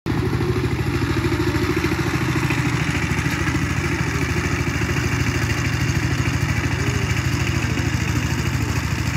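Two-wheel power tiller's single-cylinder diesel engine running steadily under load while the tiller works the soil, with a rapid, even pulse.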